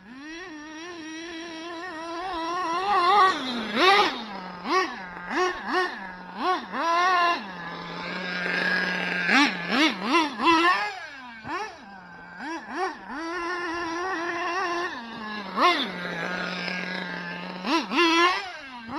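Kyosho Inferno ST nitro RC truck's Dynamite .26 glow engine with an aftermarket tuned pipe, revving in quick throttle blips that sweep sharply up and down in pitch, dropping back to a steady idle between them, with longer high-rev runs in places.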